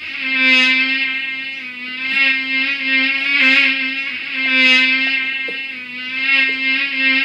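A fly buzzing: a steady drone of its wings, slightly wavering in pitch, that swells and fades in loudness several times.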